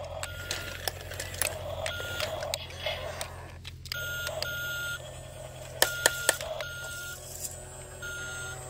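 Toy remote-control tracked excavator driving over gravel, giving out short electronic beeps every second or two over a steady motor hum, with stones clicking under its tracks.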